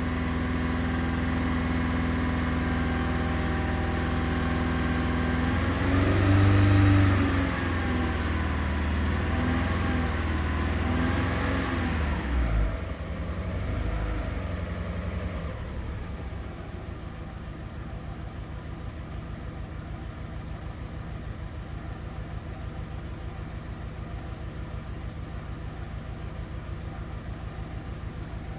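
A 2000 VW Beetle's 2.0-litre four-cylinder engine running, which has a cylinder 4 misfire (P0304). It revs up about six seconds in and goes up and down a few times, then drops back and settles to a steady idle with an even pulsing beat.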